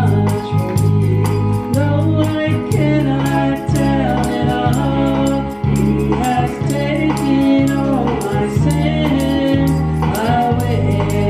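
A woman singing a gospel song into a microphone over an instrumental accompaniment with steady bass notes and an even beat of light percussion.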